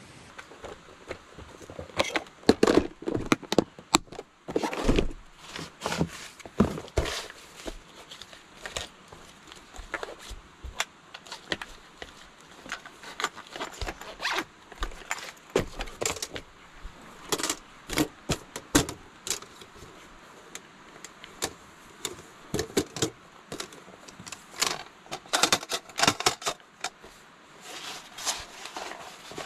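Irregular clicks, scrapes and knocks of small things being handled and moved about, with rustling between them, busiest near the start and again near the end.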